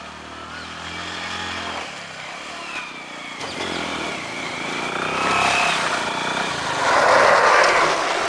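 Motorcycle engine running as the bike rides up, growing louder as it comes close and loudest about seven seconds in.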